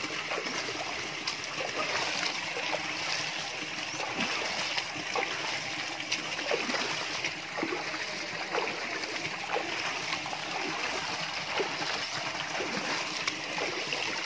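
Feet paddling in swimming-pool water: light splashes and drips, many small ones scattered throughout, over a steady watery hiss.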